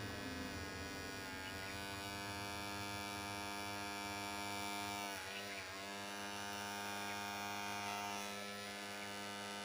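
Small electric motor humming steadily with many overtones, its pitch dipping briefly twice about halfway through as if momentarily loaded.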